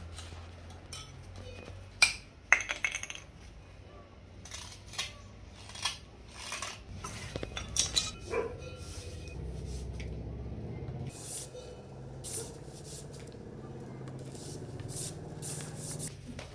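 Steel knife scraping and whittling bamboo pipes for a Hmong khèn: a run of short scrapes and sharp clicks, with a few louder knocks about two seconds in and again around eight seconds.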